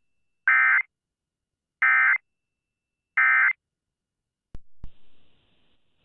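Emergency Alert System end-of-message code played over a radio stream: three short bursts of buzzy digital data tone about a second and a half apart, closing the relayed weather alert. Two sharp clicks follow about a second later.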